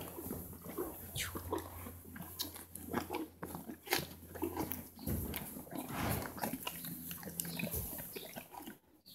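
Horse biting into and chewing an apple held out by hand, close to the microphone: irregular wet crunches mixed with snuffling breaths.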